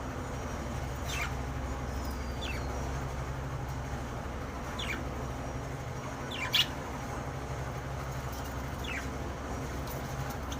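Pet budgerigars giving a handful of short, falling chirps, spaced a second or more apart, with the loudest about two-thirds of the way in. A steady low hum runs underneath.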